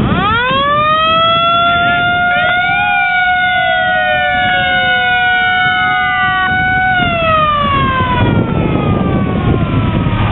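Fire engine siren winding up to a steady wail, holding it, then winding down in a long falling glide near the end. A second siren tone briefly rises and falls over it about two and a half seconds in.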